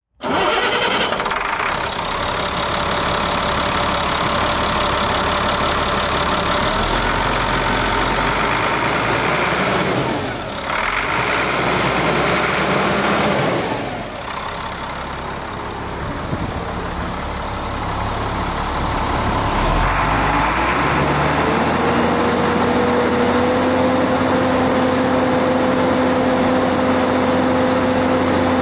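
2000 Chevrolet C6500 dump truck's Caterpillar diesel engine running steadily at idle. About three quarters of the way through, a steady whine joins in as the hydraulic hoist raises the dump bed.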